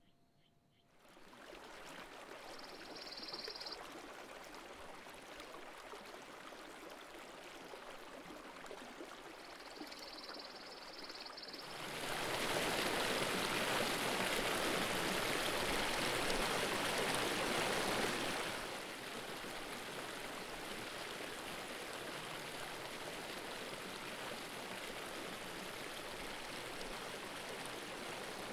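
Stream water running over rocks, fading in about a second in. A small cascade splashes noticeably louder for about six seconds in the middle, then the water settles to a quieter, steady flow over shallow rock.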